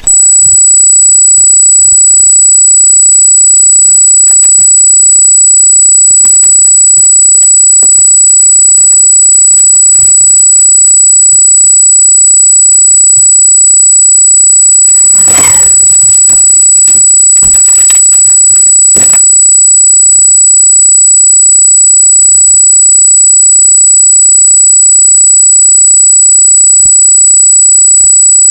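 Steady high-pitched electronic squeal in the trail-camera audio, a fault whose cause the uploader does not know. About halfway through there is a short burst of noise, followed a few seconds later by a sharp click, with scattered faint knocks throughout.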